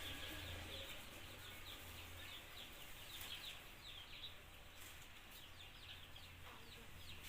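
Faint birds chirping, a quick run of short falling chirps that stops about five seconds in, over a low steady hum.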